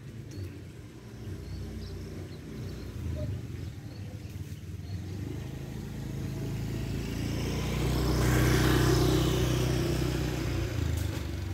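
A motor vehicle's engine passing by: a low rumble that builds to its loudest about eight seconds in, then fades.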